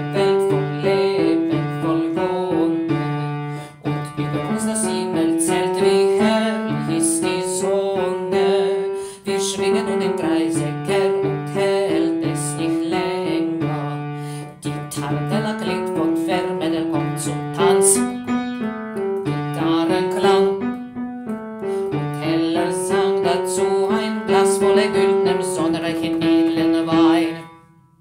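Piano playing the chords of a four-part men's-choir song, the notes changing in a steady, even rhythm. It breaks off briefly at the very end.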